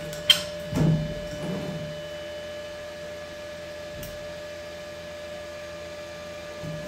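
A sharp metallic clink, then a short scrape and knock of a steel plate being tipped up on a steel welding table, over a steady electrical hum with a faint tick about four seconds in.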